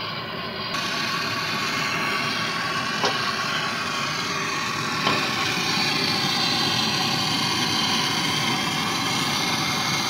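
MAPP-gas hand torch flame hissing steadily while it heats a copper refrigerant-line joint on a refrigerator for brazing. The hiss grows fuller about a second in, and two faint clicks come a couple of seconds apart.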